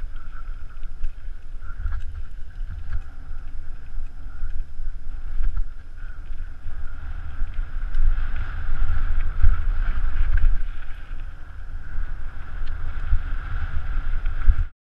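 Wind buffeting the camera's microphone while a mountain bike rides fast down a dirt forest singletrack, with tyre and trail rumble and scattered clicks and rattles from the bike. The sound cuts off suddenly near the end.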